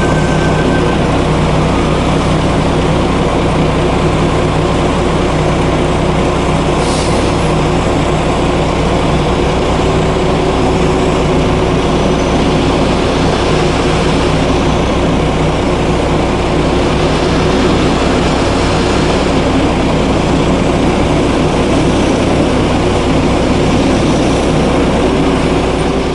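Scania coal-hauling truck pulling a double side-dump trailer, its diesel engine running steadily as it moves slowly through mud, with a brief hiss about seven seconds in.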